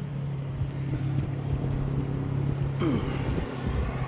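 A steady low mechanical hum, with faint scattered clicks and crackles over it.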